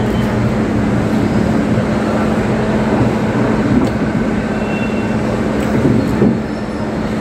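Steady ventilation or air-conditioning noise in a restaurant dining room, with a constant low hum, and a couple of light clicks of a fork against a plate.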